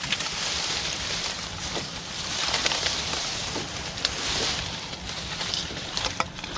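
A few slow paddle strokes, each a swishing splash of water, as a small boat is paddled across the pond, with scattered clicks and knocks; near the end, reed grass brushing against the boat.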